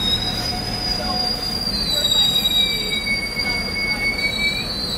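Train wheels squealing against the rails: several high, steady screeching tones that overlap and drift slightly in pitch, with a lower squeal joining about halfway through and stopping near the end.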